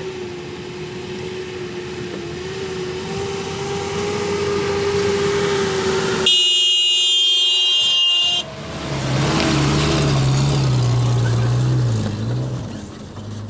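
Zamyad pickup trucks running up a rocky grade, with a steady engine note. About six seconds in, a horn sounds for about two seconds as a loaded truck passes close. After it, a lower, louder engine note holds until shortly before the end.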